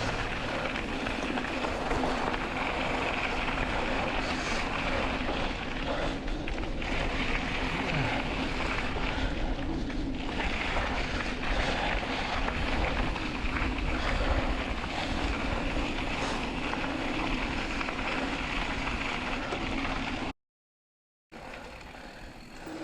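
Mountain bike rolling fast over a trail, with wind rushing over the microphone and a steady rattle from the tyres and bike. It cuts off suddenly about 20 seconds in and comes back much quieter a second later.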